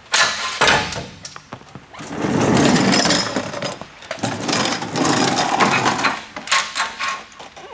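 Pneumatic air tool running in rattling bursts: three of about one to two seconds each, then a few short blips near the end, as it works on the truck's front steering parts.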